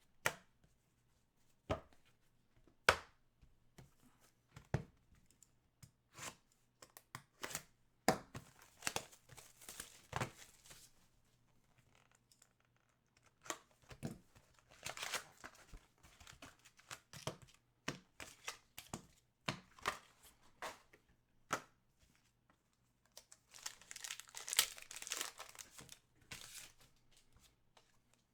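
Hockey trading card packs being torn open and their wrappers crinkled, in several bursts of rustling, along with scattered sharp clicks of cards being handled.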